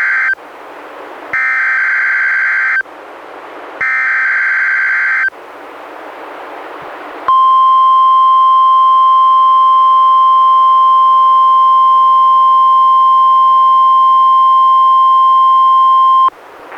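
A NOAA Weather Radio Emergency Alert System test. It starts with the buzzing SAME digital header: the tail of one data burst, then two more, each about a second and a half long, with radio hiss between them. After two more seconds of hiss, the steady 1050 Hz warning alarm tone sounds for about nine seconds and then cuts off, opening the Required Weekly Test.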